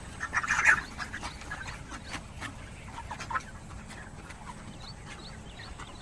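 Many poultry chicks peeping, short high calls falling in pitch, with a louder cluster of calls about half a second in.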